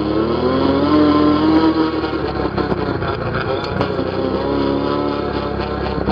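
ATV engine running under throttle. Its pitch climbs in the first second, holds, then sags and swells again about five seconds in.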